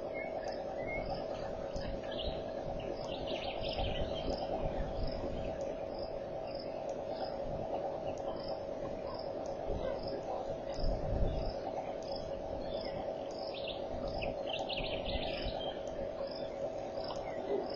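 Bush ambience at a waterhole: a short high chirp repeated about every two-thirds of a second, with scattered bird calls now and then, over a steady hum and some low rumbling.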